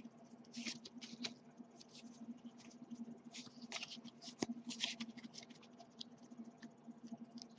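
Pokémon trading cards rustling and scraping faintly as they are slid off a stack in the hand one after another, in short irregular flicks with one sharper click partway through, over a low steady hum.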